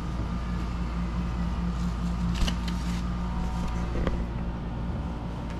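Gloves rustling as they are pulled onto a large hand, with a couple of light clicks, over a steady low mechanical hum.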